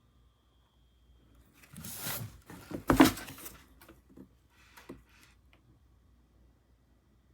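Handling noises in a small room: a rustle about two seconds in, then a sharp knock about three seconds in, followed by a few light clicks.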